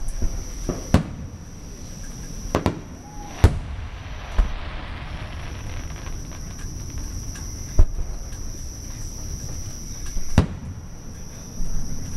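Aerial firework shells bursting with sharp, irregularly spaced bangs, about seven of them, with a hissing crackle after one about four seconds in. Underneath runs a steady, high-pitched insect chorus.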